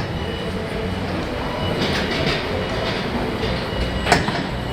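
Steady factory machinery noise, a continuous mechanical rumble, with a few short sharp clicks or knocks, the loudest about four seconds in.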